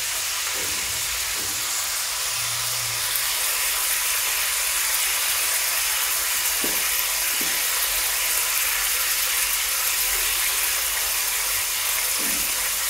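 Paneer cubes shallow-frying in oil on a low flame: a steady sizzling hiss with a few faint pops.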